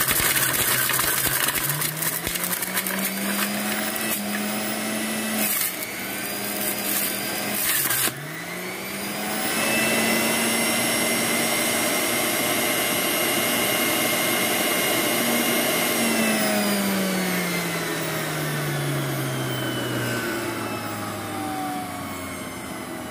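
Electric centrifugal juicer motor grinding carrots, beets and blood oranges fed down the chute with the pusher. The motor spins up and grinds with rough bursts, slows sharply under load about eight seconds in and recovers, then runs steadily. About sixteen seconds in it is switched off and winds down with a falling whine.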